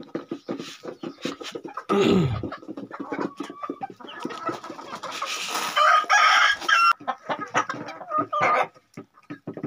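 A flock of domestic chickens clucking, with sharp ticks of pecking throughout and one long, loud call about five seconds in.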